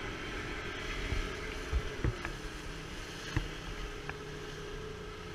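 A small boat's motor running steadily under way, with a few short low thumps about two and three and a half seconds in.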